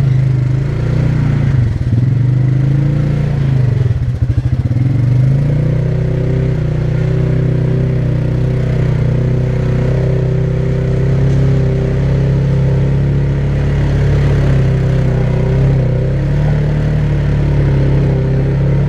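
ATV engine running, its revs rising and falling for the first few seconds and then holding at a steady speed.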